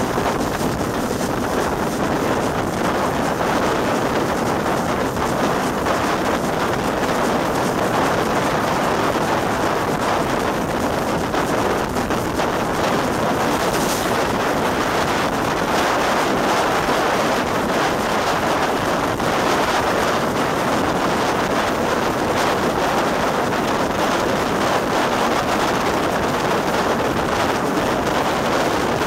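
Wind rushing steadily over a microphone held out of a moving steam train, over the running noise of the train hauled by Great Northern Railway V class 4-4-0 compound No. 85 Merlin.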